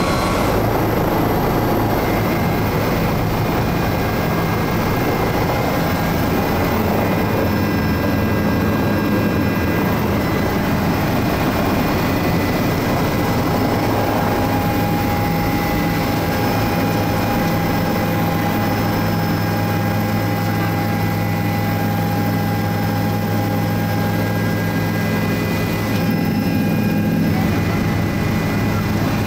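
Cabin noise of a Bell 407 helicopter heard from the front seat. Its single Rolls-Royce 250 turboshaft engine and rotor run steadily, giving a constant low drone with thin whining tones above it.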